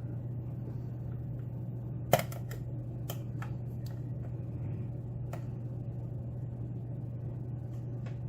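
Scattered small metallic clicks and taps of a lock pick working the pins inside a pin-tumbler challenge lock, the loudest about two seconds in, over a steady low hum.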